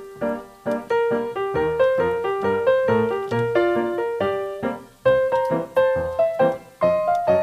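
Background piano music: a melody of quick single notes over lower bass notes.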